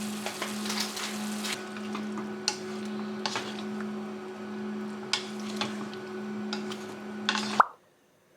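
Kitchen sounds: a steady electric hum from a small appliance with utensils and dishes clinking and scraping, cut off suddenly with a loud click near the end.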